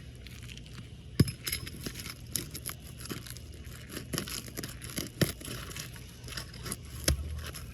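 Roof shingles crackling, tearing and scraping as a tool works under them to loosen them and their nails, with irregular clicks and a few sharp knocks, the loudest about a second in, around five seconds in and near the end.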